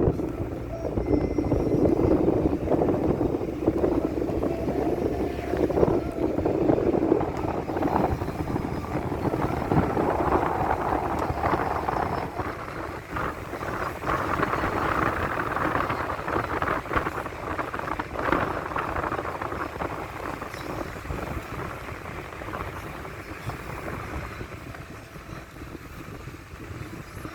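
A vehicle running on the road, a steady rumble mixed with wind noise, easing off in the last few seconds.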